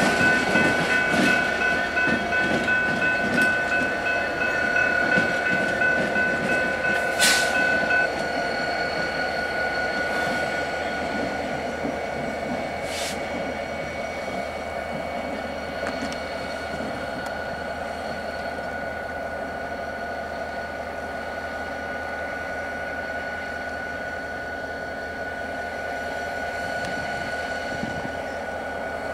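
Diesel yard locomotives, a Canadian Pacific and a Kansas City Southern unit coupled together, running slowly through the yard with a steady engine hum and high whine. For the first several seconds there is a rhythmic clatter of wheels over the rail joints, and there are sharp knocks about seven and thirteen seconds in. After that the sound settles to a quieter steady running.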